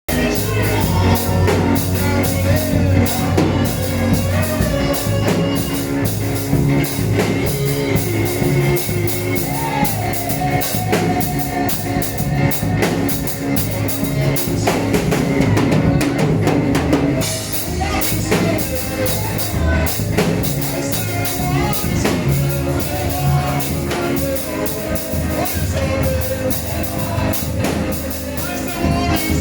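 Church band music with a drum kit playing a steady beat over sustained bass notes.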